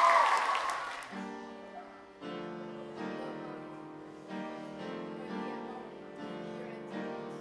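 Crowd cheering fades out in the first second, then an upright piano plays slow chords, a new chord struck about once a second.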